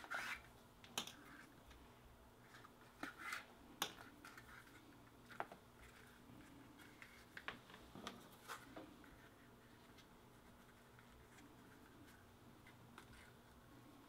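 Faint hand saddle stitching on leather: scattered small ticks and short rasps as the needles and thread are pushed and pulled through the holes, dying away to near quiet after about nine seconds.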